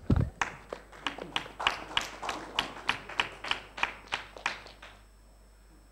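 Audience clapping after a talk: sharp, evenly spaced claps about three a second, fading out about five seconds in.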